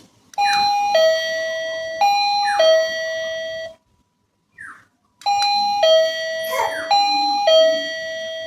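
Wireless doorbell chime playing its electronic two-tone ding-dong, a high note then a lower held note, twice in a row. After a gap of about a second and a half it plays the ding-dong twice more. A short faint chirp falls in the gap.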